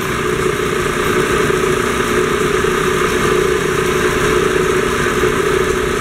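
Homemade wood lathe driven by a washing-machine motor, running with a steady hum, its freshly welded drill-chuck mandrel spinning on a test run of the repaired spindle.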